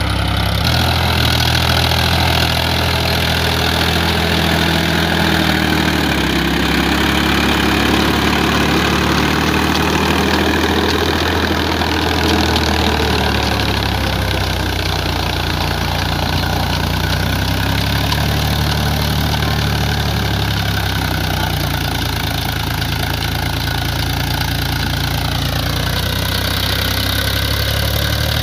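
Powertrac Euro 50 tractor's diesel engine running steadily under load while it drives a rotavator through wet paddy-field mud.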